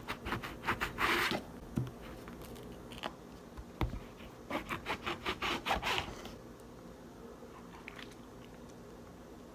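Kitchen knife sawing through grapefruit rind and flesh with short rasping strokes, in two spells: through the first second and a half, and again from about four to six seconds in.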